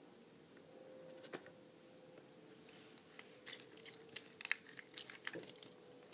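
Toy slime being handled: faint squishing and small crackling clicks, sparse at first and coming thick and fast in the second half, over a faint steady hum.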